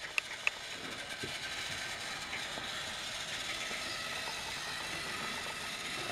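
Battery-powered TrackMaster toy engine's small electric motor running steadily as it pulls a wagon along plastic track, with a few light clicks in the first half second.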